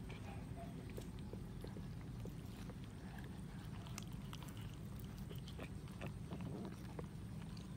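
Several cats chewing and biting at a cooked chicken: scattered small clicks and crunches over a steady low background hum.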